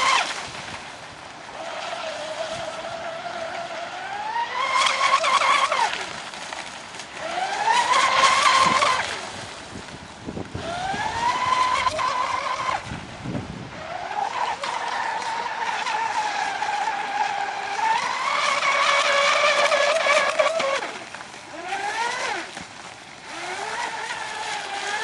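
Radio-controlled racing catamaran boat's motor at speed: a high whine that climbs in pitch again and again as the throttle is opened, holding a steady note in between. Near the end it gives two quick rises in pitch.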